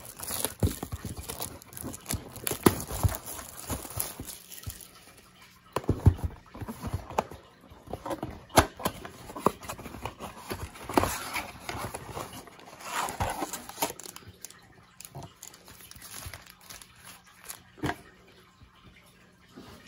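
Plastic shrink-wrap crinkling as it is torn off a cardboard trading-card blaster box, then the cardboard box being opened and foil card packs handled, with scattered clicks and taps among the rustling.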